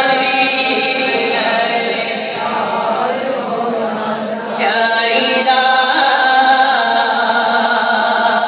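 A man's voice chanting in long, held melodic phrases, amplified through a microphone and loudspeakers.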